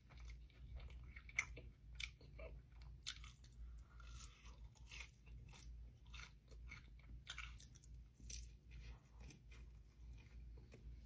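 Close-up chewing of a mouthful of fried food, with irregular crunches and small wet mouth clicks, over a faint steady low hum.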